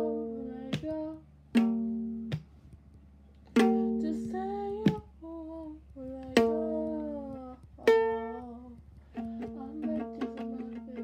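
Slow strummed chords on an acoustic string instrument, each left to ring and fade, with the strumming quickening near the end as the song's accompaniment.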